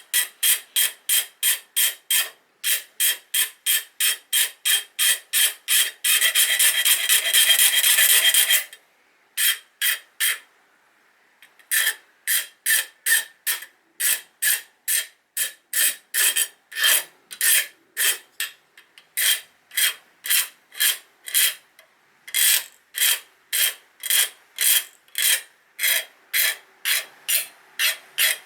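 Metal hand file rasping across the steel of a kitchen knife blade in short back-and-forth strokes, about two a second, filing off a sharp corner. A few seconds in the strokes run together into a continuous rasp, then stop briefly before the steady stroking resumes.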